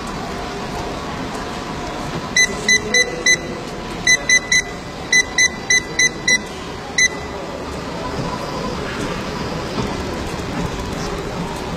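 About a dozen short electronic beeps, all at the same high pitch, come in quick groups of four, three and five and then one last single beep. They sound over a steady background noise.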